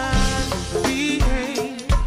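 Turn-of-the-millennium R&B music: a singing voice running through bending, melismatic lines over a drum beat, with a heavy kick drum near the end.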